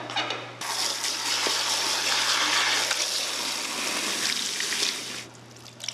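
Water running at a salon shampoo sink, a steady rush that starts abruptly about half a second in and stops about five seconds in.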